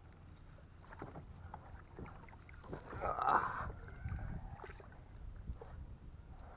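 Water sloshing against a small fishing boat, with scattered knocks and clicks of gear and a louder splashing rush about three seconds in, while a hooked striped bass is played close to the boat.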